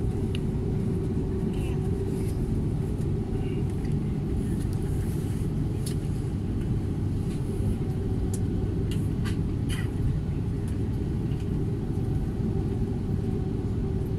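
Airliner cabin noise while taxiing: a steady low rumble from the jet engines and the wheels rolling on the taxiway, with a steady hum running through it.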